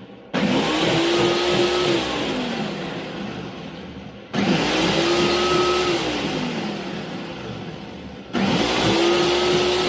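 Blender blending soaked oats and milk into a punch, run in three pulses about four seconds apart. Each time the motor cuts in suddenly with a rising whine, holds for a moment, then slows and winds down.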